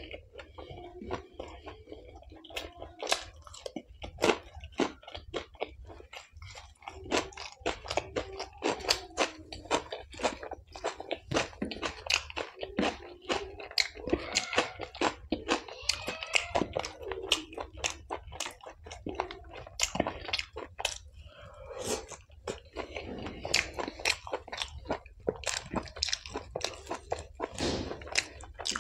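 Close-miked chewing of chole bhature, deep-fried bhatura bread with chickpea curry: wet mouth sounds and many irregular sharp lip and tongue clicks.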